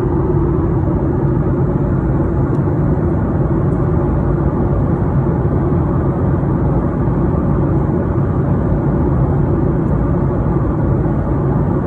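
Steady drone of engine and air noise inside an airliner cabin in flight. Even and unchanging, with a low hum strongest in the bass.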